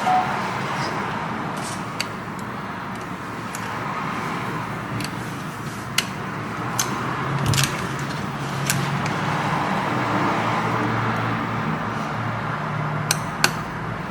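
A steady low hum with scattered sharp clicks of metal tweezers tapping and prying at a laptop logic board's USB-C charging port.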